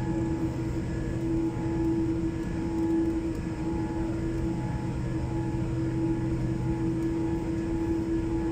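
Inside the cabin of a Boeing 787-8 taxiing on the ground with its engines at idle: a steady low rumble with a constant, even hum.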